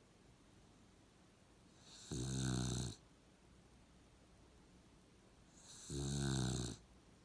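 Puggle, a pug–beagle cross dog, snoring: two snores about four seconds apart, each just under a second long, a low buzz with a breathy hiss on top.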